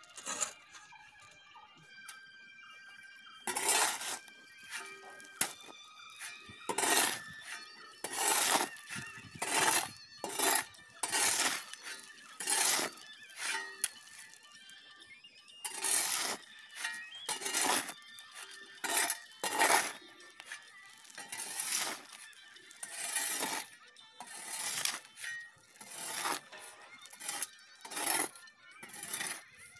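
Steel shovel scraping across a concrete slab and digging into a pile of gravel, sand and cement, with stones crunching and clinking. The strokes come about once a second, starting a few seconds in, as the dry concrete mix is turned over by hand.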